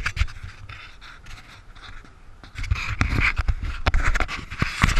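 Close rustling, scraping and knocking right at an action camera worn by a cyclist sitting in dry grass, mixed with what sounds like hard breathing; it grows louder and busier about halfway through.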